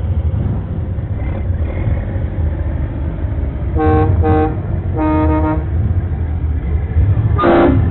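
Vehicle horns honking: two short toots, then a longer honk, and another brief honk near the end, over the steady low rumble of slowly passing vehicle engines.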